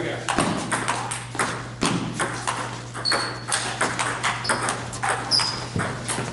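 Table tennis rallies: celluloid-type balls ticking off paddles and bouncing on the tables in an irregular patter of sharp clicks, with a couple of brief high squeaks.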